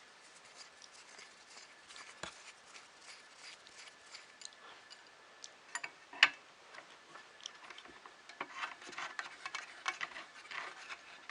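Light clicks and taps of small 3D printer kit parts being handled and fitted together, with one sharper click about six seconds in and a busier run of taps near the end.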